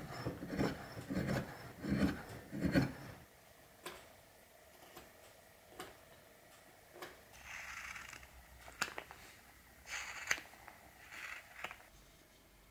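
Even strokes of a long steel blade working a clamped birch burl block, about one every 0.7 seconds, stopping about three seconds in. After that the wooden piece is handled with a few light knocks, and near the end come short scratchy rubs of a pencil marking an outline on the burl.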